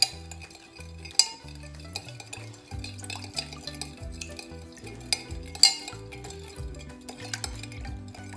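A metal spoon stirring sugar into lemon juice and water in a glass measuring jug, clinking sharply against the glass at irregular moments, with the loudest clinks about a second in and about five and a half seconds in.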